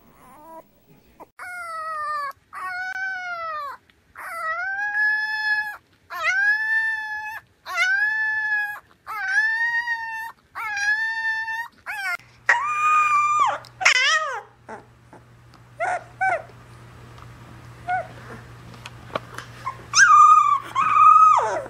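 Puppies howling: a run of about eight short, high, wavering howls, one after another, then a few short yips, and a husky-type puppy's two louder high howls near the end.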